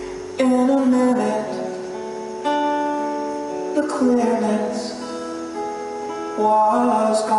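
Acoustic guitar strummed in four slow chords, each left to ring out, with a man singing over them.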